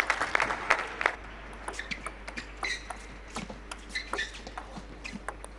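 Scattered hand-clapping for about a second, then the sharp clicks of a table tennis ball off the bats and table during a rally.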